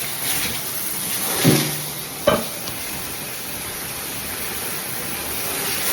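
JOMST handheld shower head spraying water in its strongest, power-wash mode: a steady hiss of water, with a sharp click about two seconds in.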